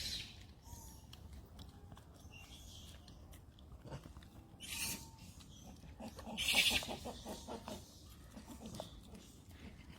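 Monkeys squealing: two short, harsh, high-pitched calls, one about halfway through and a louder one a second and a half later.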